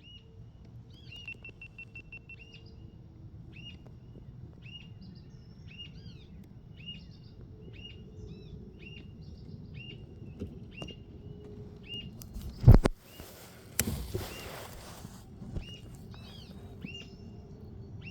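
A bird chirps over and over, a short call about once a second, over a steady low rumble. About thirteen seconds in comes a sudden loud smack, the loudest thing heard, followed by a second and a half of rushing noise.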